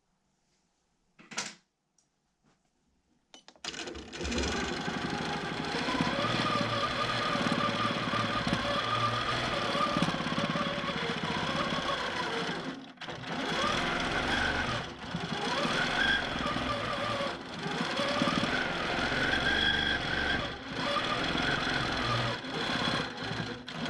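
Q'nique 19 longarm quilting machine starting up about four seconds in and stitching in stitch-regulated mode, its motor whine rising and falling in pitch as the speed follows the hand movement, with several brief dips.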